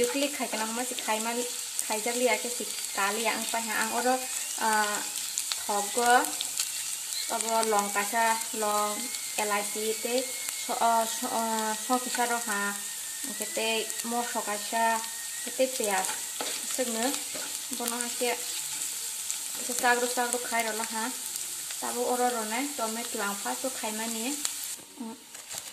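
Sliced onions and green chillies sizzling in hot oil in a non-stick kadai, with a spatula stirring and scraping the pan about once or twice a second. The sizzle and stirring stop about a second before the end.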